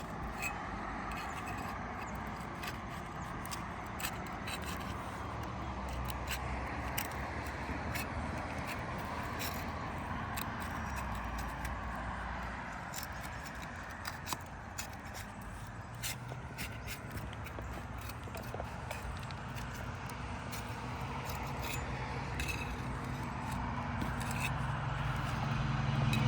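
Scraping and scattered sharp clicks of roofing shingles being worked loose by hand tools, over a steady low rumble.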